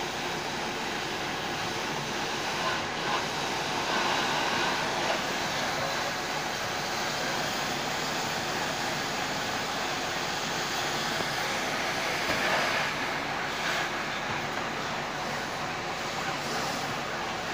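Fire engine running at a fire scene: a steady rushing noise that swells slightly twice.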